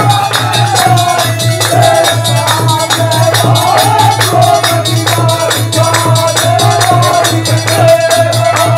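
Live Indian folk music of a Holi song: a fast, steady beat of jingling percussion and hand claps, with a held melody carried over it.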